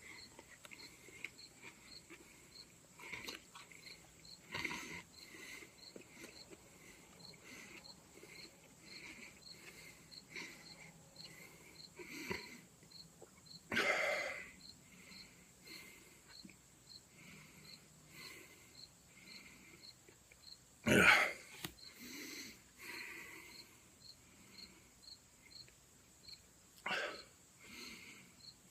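Crickets chirping steadily, about two chirps a second, over a constant high insect hum. A handful of short louder noises from the person break in now and then, the loudest with a spoken 'yeah' about two-thirds of the way through.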